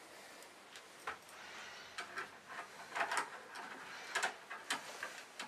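Irregular small clicks and taps of a metal CPU-cooler backplate being handled and pushed against the back of a motherboard while it is lined up, with a quick cluster of clicks about three and four seconds in.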